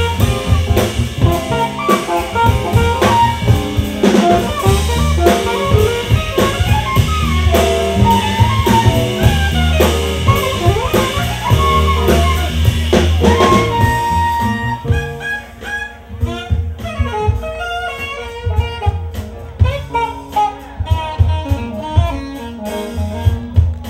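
Live jazz-funk band with an alto saxophone soloing over drum kit, bass and keyboard. About two-thirds of the way through, the cymbals stop and the backing thins out and gets quieter, while the saxophone keeps playing.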